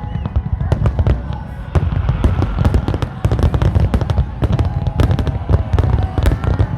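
Fireworks display: many rapid bangs and crackles over a continuous deep rumble of booms, with people's voices faintly underneath.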